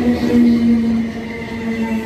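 Electric train running past the platform, its traction motors whining in a steady tone that drifts slightly lower in pitch as it slows, over the rumble of wheels on the rails.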